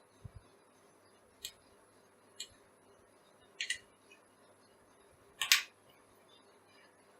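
Several short, sharp clicks and taps of small parts being handled, about a second apart, the loudest a double click about five and a half seconds in.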